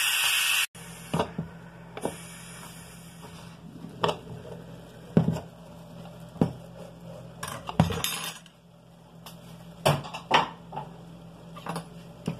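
Pressure cooker's weighted valve, held open, hissing out steam, cut off sharply under a second in. Then scattered metallic knocks and clinks as the cooker's metal lid is twisted open and lifted off.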